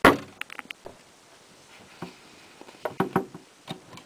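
One loud, sharp knock at the start, the last of a quick series of knocks about half a second apart, then scattered light taps and clicks, most of them about three seconds in.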